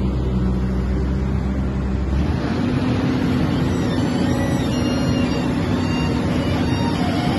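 Excavator diesel engine running steadily. About two seconds in, its deep low rumble drops away and a steadier, higher hum takes over.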